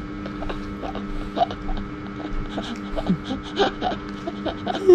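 Children chewing toast, with small mouth sounds and brief murmurs over a steady low hum; a child's laugh breaks out right at the end.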